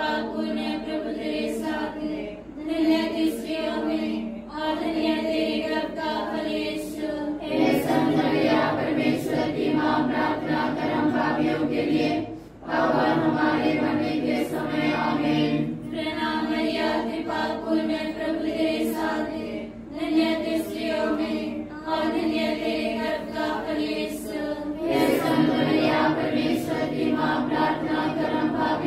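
A group of voices singing a prayer together in unison, without instruments, phrase by phrase with short breaks between.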